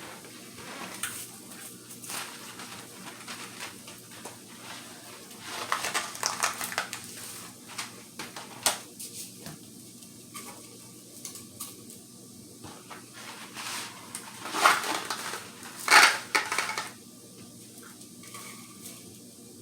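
Dry fettuccine going into a pot of boiling water, with pot and utensil clatter, rustling and scattered knocks. The loudest clatter comes about fifteen seconds in.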